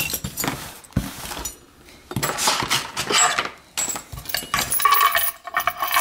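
Keys on a ring jingling and clinking against a small brass lock core as it is handled, with rustling and a few light taps.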